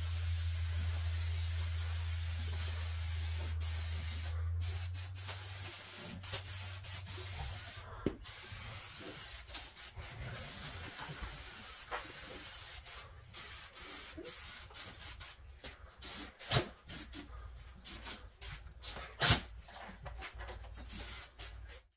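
Aerosol spray paint can hissing as it sprays onto the underside of a mower deck, in long bursts at first and then in short bursts with brief pauses. Two louder knocks come about three-quarters of the way in and near the end, and a low hum sounds for the first few seconds.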